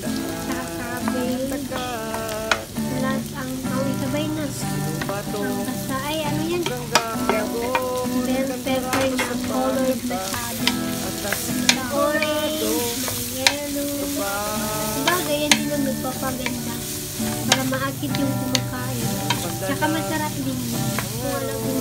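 Sliced vegetables sizzling as they are stir-fried in a stainless steel wok, a wooden spatula scraping and tossing them with scattered sharp clicks against the pan. Music plays in the background.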